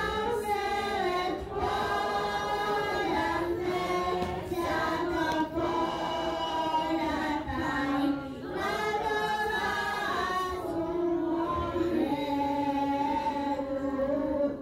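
Choir of children and adults singing together, held sung notes in phrases with short breaks between them.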